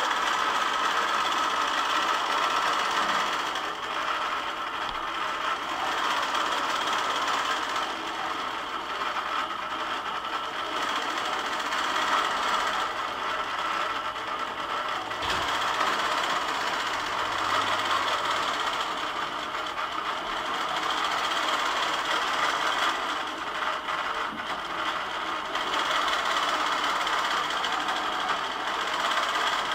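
Longarm quilting machine stitching across a quilt: a steady, fast mechanical running of needle and motor that swells and eases slightly as the head moves.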